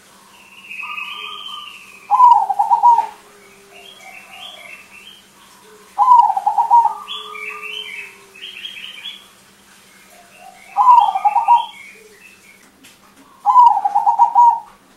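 Crossbred zebra dove (perkutut) singing: four loud phrases of rapid, stuttering coos, about one every three to four seconds. Fainter, higher chirps from small birds come between the phrases.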